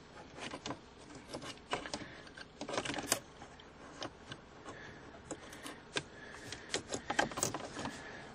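Irregular plastic clicks, knocks and rattles from a car center console's plastic side trim panel being handled and pressed into its slots, with the sharpest clicks about three seconds in and again near seven seconds.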